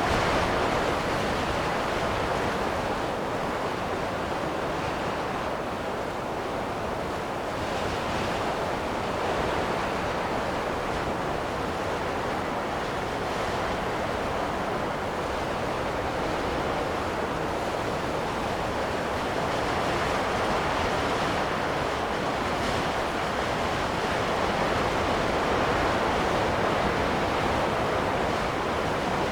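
Wind gusts blowing as a continuous rushing noise that slowly swells and eases, dipping a little about six seconds in and building again towards the end.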